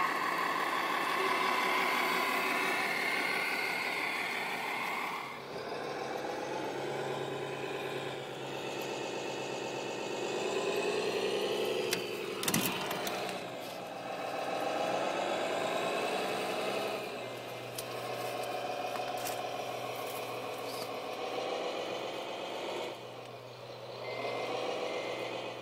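Sound modules in radio-controlled scale trucks and construction machines playing simulated diesel engine sound through small speakers, revving up and down several times; a reversing beeper starts pulsing near the end.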